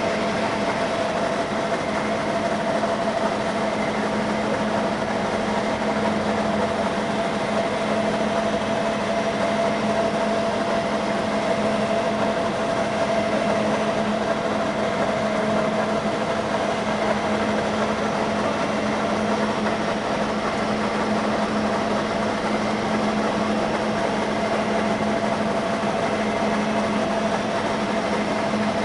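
Heavy 1N65 engine lathe running steadily: an even machine hum with a steady whine that holds at one pitch and does not change.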